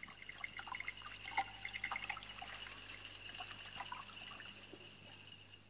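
Faint, irregular drip-like plinks and ticks over a thin, steady high tone, slowly fading out.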